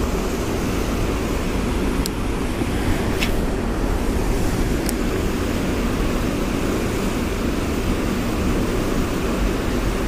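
Steady low rushing noise, even and unbroken, with three faint high ticks about two, three and five seconds in.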